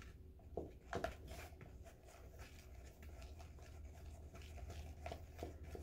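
Spoon stirring cornstarch into thick white glue in a clear plastic bowl: faint scraping and rubbing, with a few soft taps against the bowl, over a low steady hum.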